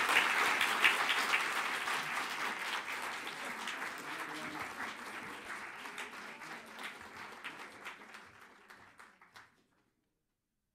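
Audience applauding, strongest at the start and thinning out gradually over several seconds before cutting off abruptly near the end.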